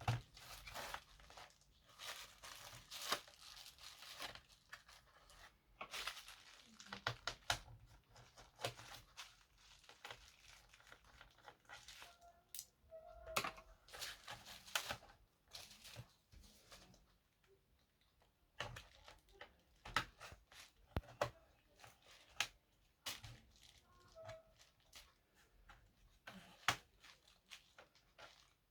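Close-up handling noises: crinkling and tearing of plastic or packaging, with scraping and irregular sharp clicks and taps.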